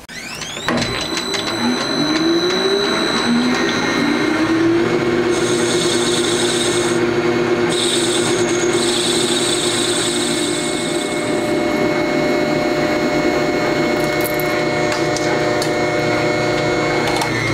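Metal lathe starting up about a second in, its motor and gears rising in pitch, then running steadily while a cutting tool turns a small metal washer and a drill bores it; a high cutting hiss stands out in the middle.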